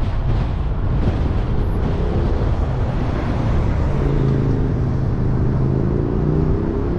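Vehicle being driven, with steady road and wind noise. About halfway through, an engine hum comes through more clearly and rises slightly in pitch near the end as the vehicle pulls away.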